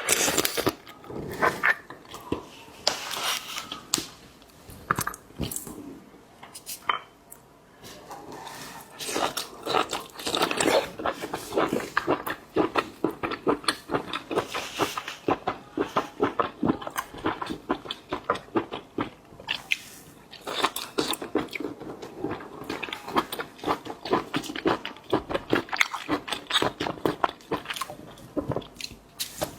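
Close-miked eating sounds: a person biting and chewing seafood, with dense runs of crunchy mouth clicks and a short lull about a quarter of the way in.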